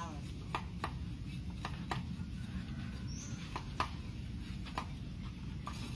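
Wood fire crackling under bamboo tubes of sticky rice, with sharp irregular pops about once or twice a second.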